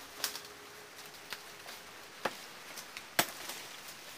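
Machete chopping branches: four sharp strokes roughly a second apart, the loudest about three seconds in.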